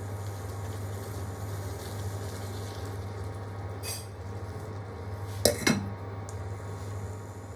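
A metal utensil clinks against a cooking pan: a light clink about four seconds in, then two sharp knocks in quick succession about five and a half seconds in, over a steady low hum.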